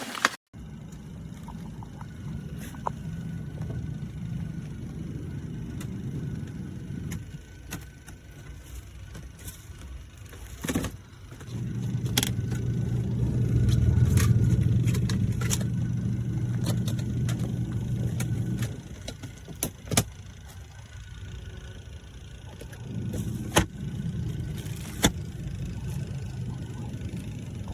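Compact twin-tub portable washing machine's motor running in spells, a low hum that runs several seconds, stops, and starts again three times, with scattered light clicks and knocks.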